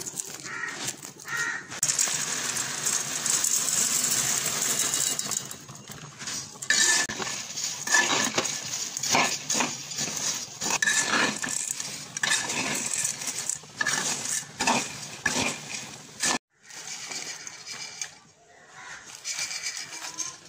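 Chana dal (split Bengal gram) frying in oil in a steel pan, stirred with a metal spoon. A steady sizzling hiss comes first, then repeated scraping and clinking of the spoon against the pan as the lentils rattle.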